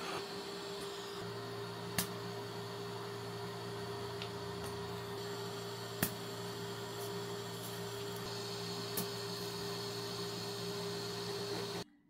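Steady machine hum with a constant tone and a lower drone that joins about a second in, with three sharp clicks; it cuts off abruptly near the end.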